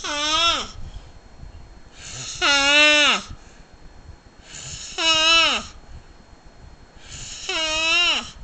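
Loud snoring: four snores about every two and a half seconds, each a breathy rasp that turns into a high, whining tone which drops in pitch as it ends.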